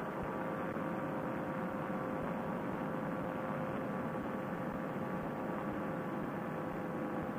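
Two-stroke Vittorazi Moster paramotor engine and propeller running steadily in cruise flight, a constant drone with wind noise. It is heard through a Bluetooth headset microphone that cuts off all the treble.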